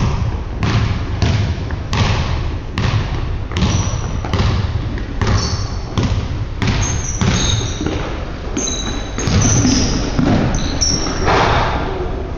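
Basketball dribbled on a hardwood gym floor, bouncing in a steady run with echo from the hall. Short high sneaker squeaks come in the middle of the stretch as players cut across the court.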